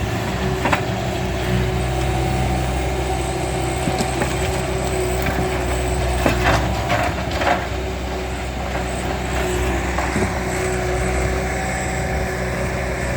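Heavy equipment engine running steadily while concrete slabs are lifted and dropped. A few sharp cracks and knocks of breaking concrete come about a second in, around four seconds, and in a cluster a little past the middle.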